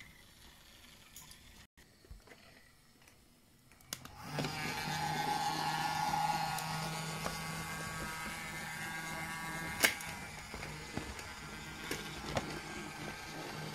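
Battery-powered Brio toy train's electric motor and gears whirring steadily on wooden track, starting about four seconds in, with a sharp click near ten seconds.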